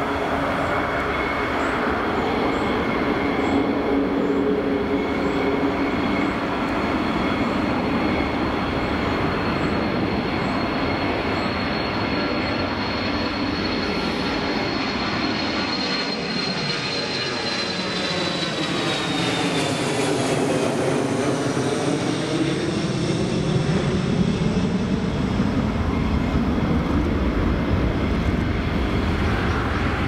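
Twin jet engines of an F-15E Strike Eagle running at low power while it taxis and holds: a steady whine over a rushing roar. A little past the middle the high whine slides down in pitch, and the roar sweeps with a whooshing, phasing sound.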